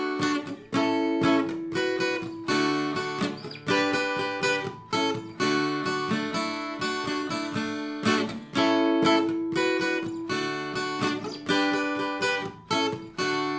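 Acoustic guitar strumming chords in a steady rhythm, each stroke ringing out into the next.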